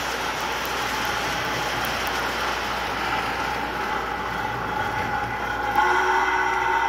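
MTH Big Boy 4018 O-gauge model steam locomotive running on three-rail track under a heavy load, its onboard steam sound effects playing over the wheel and track noise. It gets louder about six seconds in as it comes close.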